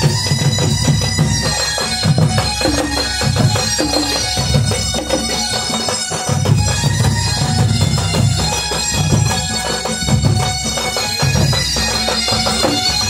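Drums and a shrill double-reed pipe play loud, continuous traditional folk music, the pipe held on sustained notes over a pulsing drum beat.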